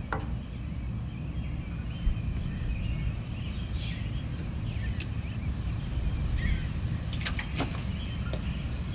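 Outdoor ambience: a steady low rumble with faint bird chirps. A knuckle knocks on a glass-panelled front door right at the start, and a few sharp clicks come about seven to eight seconds in.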